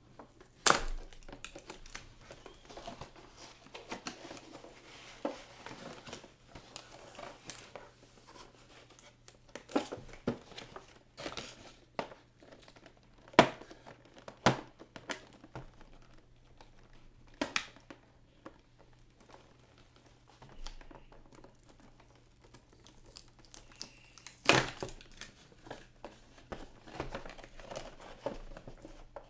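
Action-figure packaging being opened by hand: plastic and cardboard crinkling and tearing, with irregular sharp clicks and snaps, the loudest about a second in, near the middle and near the end.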